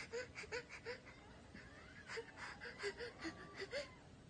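Soft, short gasping breaths from a person, in a quick irregular string with a brief lull in the middle: the 'ah-ah' build-up of a pretend sneeze.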